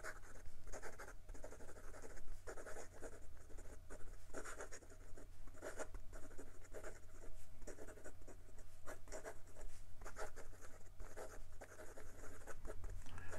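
Sailor 1911 Large fountain pen's 21-karat gold nib writing quickly on paper: a fast run of short, irregular pen strokes.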